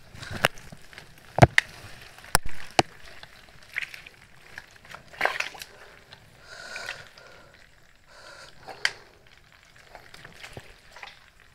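Footsteps and handling noise over sticks and mud: irregular sharp clicks and knocks with short rustles between them.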